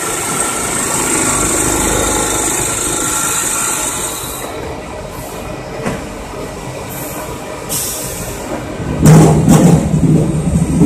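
Automatic potato weighing and bagging machine running with a steady mechanical clatter and rumble, and a hiss over the first few seconds. A louder burst of clattering comes about nine seconds in.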